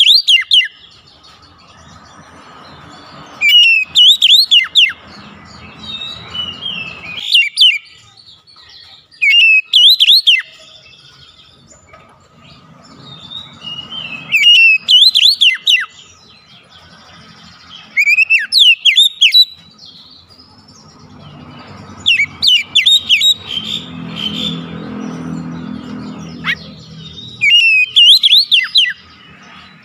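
Oriental magpie-robin (kacer) singing: loud bursts of rapid whistled notes that sweep up and down, about seven phrases, one every four to five seconds, with pauses between. A faint low rumble sounds in the background between some phrases.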